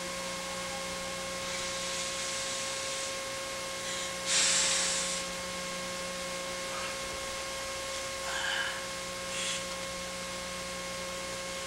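Steady electrical hum and hiss of an old video recording, with a short breathy hiss a little over four seconds in and two fainter brief rustles near the end.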